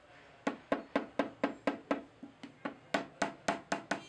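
A wooden stick rapping on a pattern bedded in a sand-casting mould, about four sharp knocks a second starting half a second in, each with a short woody ring. This is rapping the pattern to loosen it from the packed sand before it is drawn out.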